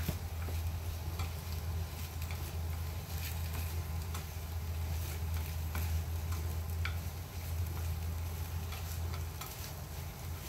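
Food sizzling in a frying pan, with scattered light clicks of cooking utensils, over a steady low hum.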